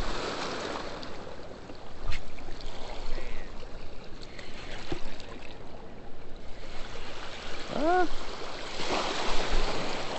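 Steady rush of river water pouring through a dam spillway, swelling and easing, with a short pitched sound rising and falling near the end.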